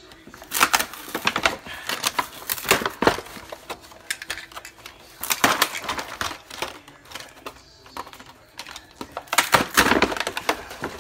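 Small plastic toy pieces and their clear plastic packaging being handled: bursts of rapid clicking, rattling and crinkling, in three main bunches, the loudest near the end.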